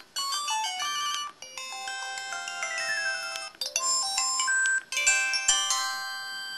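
LG-SV110 flip phone's built-in effect tones: four short synthesized chime jingles in a row, each a second or two long with brief gaps between, the second one with a quick falling run of notes.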